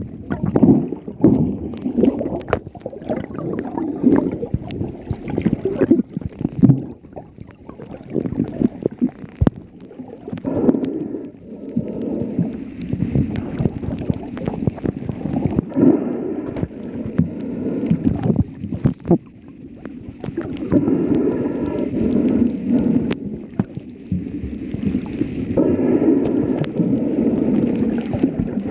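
Muffled underwater sound picked up by a submerged camera: water sloshing and gurgling, rising and falling every second or two, with scattered sharp clicks and knocks.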